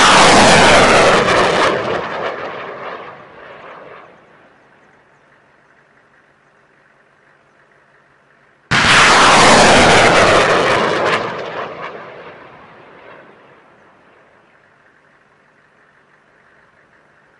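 HIMARS launcher firing rockets: two launches, each a sudden loud rocket-motor roar that fades away over about four seconds. The first is already under way at the start and the second comes about nine seconds in.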